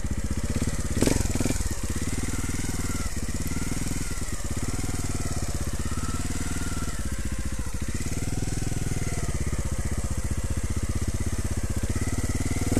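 Trials motorcycle engine running at low revs, its note rising and falling gently with small openings of the throttle. A brief knock about a second in.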